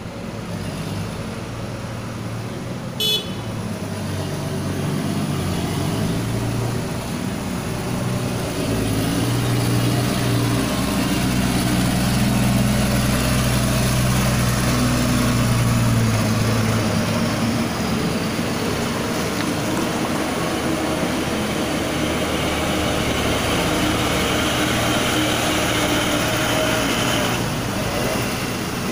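A heavy dump truck's engine running as it drives slowly past close by, growing louder from about six seconds in and fading after about sixteen seconds, over steady traffic noise. A short horn beep sounds once, about three seconds in.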